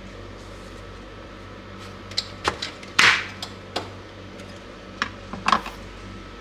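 A scattered series of knocks and taps as eggplants and a kitchen knife are put down on a wooden cutting board, the loudest about three seconds in.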